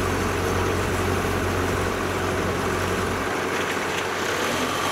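Heavy farm-machine engine running steadily with a low, even drone, from the paddy-field harvesting and hauling machines working a combine harvester that is bogged in mud.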